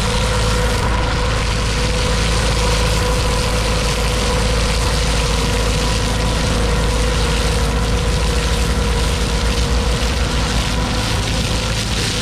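Hydroseeder's engine and slurry pump running at a steady pitch, with the steady rush of green hydroseed slurry jetting from the hose nozzle onto soil.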